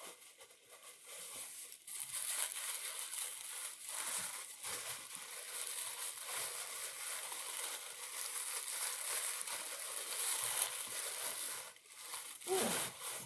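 Crinkly packaging being handled and unwrapped by hand, a steady run of rustling and crackling. A brief bit of voice comes near the end.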